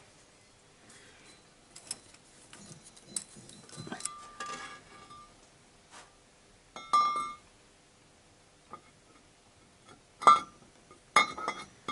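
Exhaust manifold of a VAZ 2111 8-valve engine clinking and knocking against the cylinder-head studs as it is slid into place. There are a few light metallic clinks, with sharper ringing clanks about seven seconds in and twice near the end.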